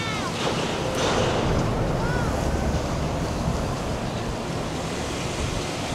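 Motorboats' wake and choppy water splashing and rushing, with wind on the microphone and a low engine rumble from the passing boats. Short high-pitched calls sound at the start and about two seconds in.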